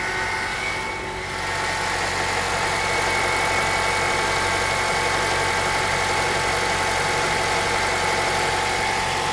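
2008 Honda CR-V's 2.4-litre four-cylinder engine idling steadily with no load, just after a remote cold start at about −5 °C. The knock this engine is known for is not heard at this point.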